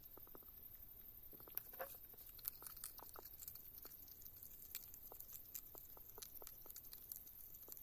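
Faint, irregular crunching and clicking of an animal chewing small fish, with a few louder crunches about two seconds in.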